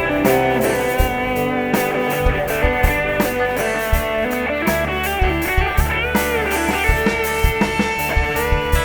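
Live rock band playing an instrumental passage with no vocals: an electric guitar carries sustained, bending lead notes over bass and a steady drum beat.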